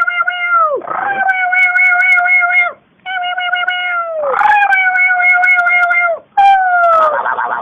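A pet's long, steady, drawn-out calls, one after another, each lasting a second or two and dropping in pitch as it ends; the last one near the end is rougher and buzzier.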